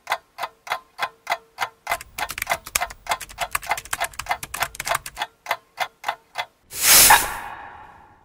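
Clock-like ticking sound effect, about three or four sharp ticks a second, thickening with extra clicks over a low rumble from about two seconds in until five. The ticks stop near the end and one loud crash hits, ringing away over the last second and a half.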